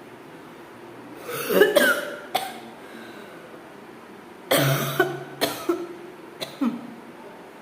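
A person coughing in two fits: about three coughs about a second in, then a longer run of about six coughs starting around halfway through.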